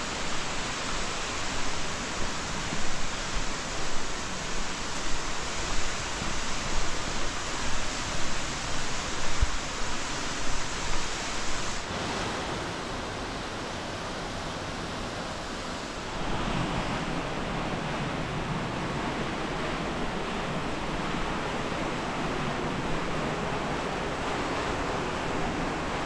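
Waterfall rushing, a dense steady hiss of falling water. In the first half it swells and dips about every 0.7 s; a little before halfway it drops suddenly, then steps back up a few seconds later.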